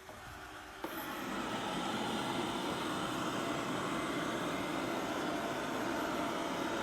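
Coredy R500+ robot vacuum cleaner running: a steady, even whir of its suction motor and brushes, which sets in about a second in.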